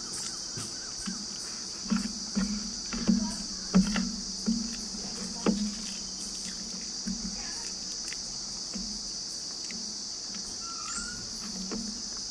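Eating sounds of rice being eaten by hand, with short clicks and mouth noises clustered between about two and six seconds in, over a steady high-pitched insect chorus that runs underneath.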